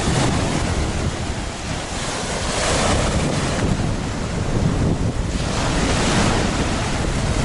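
Black Sea waves breaking on the shore in a light storm, the surf swelling louder twice, with wind buffeting the microphone as a low rumble.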